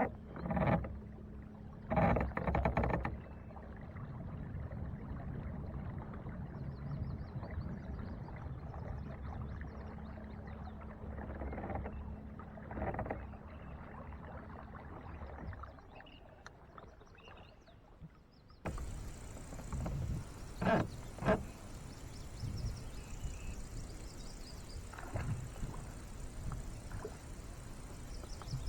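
Boat motor running steadily with a low hum, which stops about sixteen seconds in; after a lull, a few sharp knocks over water and wind noise.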